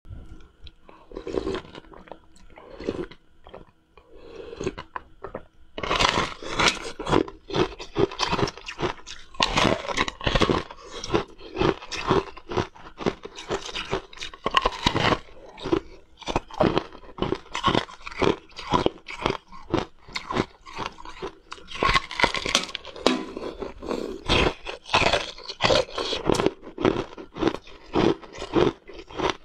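A person biting and chewing a thin, brittle sheet of yellow ice: a few scattered crunches at first, then from about six seconds in a dense run of crackling crunches and chewing.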